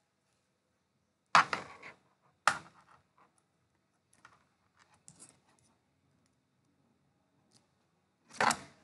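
Handling noise of small hard objects: two sharp clicks or knocks, a few faint taps, and a short scrape or rustle near the end.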